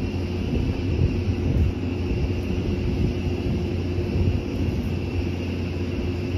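An engine running steadily: a continuous low mechanical drone with a steady hum.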